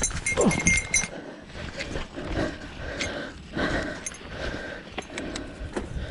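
Bicycle rattling and clinking over a rough trail, with a low rumble of tyres and wind and a short falling whine in the first second.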